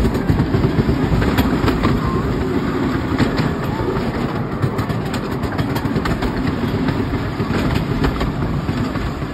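Miniature passenger railway train running, heard from an open carriage: a steady low rumble of the wheels on the track, with irregular clicks and clacks.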